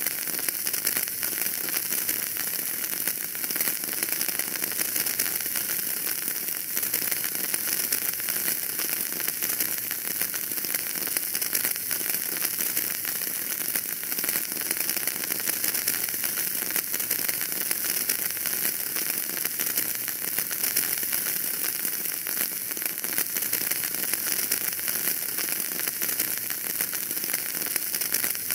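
Wood fire in a fireplace crackling steadily, a dense run of small pops over a constant hiss.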